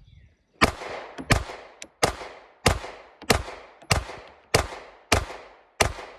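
SIG Sauer P365 pistol fired nine times in steady succession, about one and a half shots a second, each report followed by a short fading echo.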